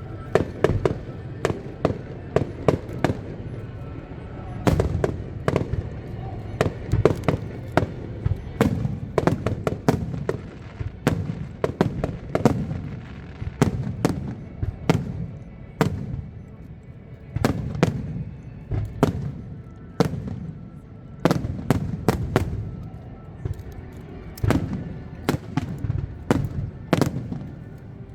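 Aerial fireworks going off: an irregular, rapid run of booms and sharp bangs, often in quick clusters.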